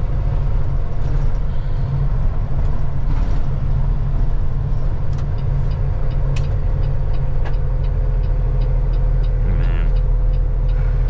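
Peterbilt semi truck's diesel engine running at a steady low drone, heard from inside the cab while driving. A light, evenly spaced ticking comes in for a few seconds in the middle.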